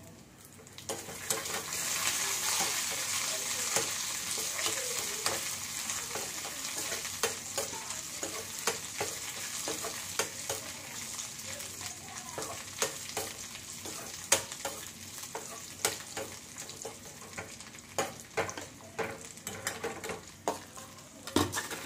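Cashew nuts and raisins frying in ghee in a steel kadai, sizzling, while a steel ladle stirs them and clinks and scrapes against the pan. The sizzle swells about a second in and then slowly dies down.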